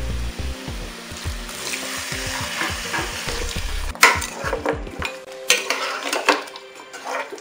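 Beef, tripe and cow skin sizzling in a hot pot just after a little water has gone in. From about four seconds in, a metal spoon stirs the meat, scraping and clinking against the pot.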